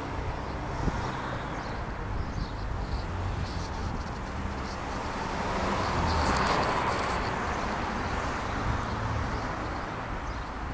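Outdoor street noise picked up by a hand-held phone while walking, with low rumble from the microphone being carried. About six seconds in, a broad whoosh of noise rises and fades, as of something passing.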